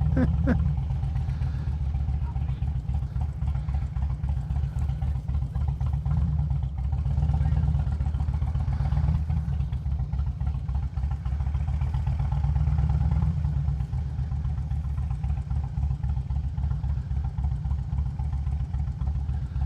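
Harley-Davidson Road King's 88-cubic-inch V-twin idling with a steady low, lumpy pulse, swelling slightly a couple of times.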